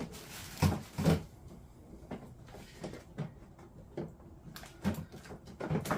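Hard plastic parts of a kids' ride-on car knocking and clicking together as they are handled and fitted, with two loud knocks about a second in and lighter knocks after.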